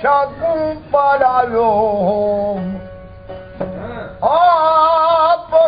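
A man singing a devotional folk song in long, wavering held notes, with a plucked long-necked gourd-bodied string instrument behind him. The voice fades for about a second just after the middle, then comes back strongly.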